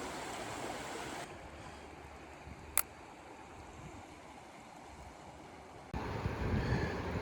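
Steady rushing of river water, cut short about a second in to a quieter outdoor hush with a single sharp click near the middle. Near the end it cuts to louder, low rumbling noise.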